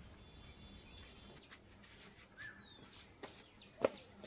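Faint rural outdoor ambience: an insect's short high-pitched buzzes repeating about once a second, with a bird's brief chirp about halfway. A few soft knocks come near the end, the loudest shortly before the end.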